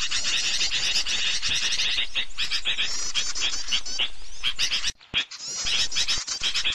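A dense chorus of small birds chattering and chirping in rapid repeated high notes. It is a lure recording for small birds, played to draw them in. It breaks off briefly about five seconds in, then resumes.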